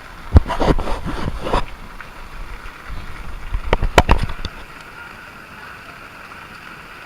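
Steady hiss of heavy rain, broken by two clusters of sharp knocks and bumps, about half a second in and about four seconds in.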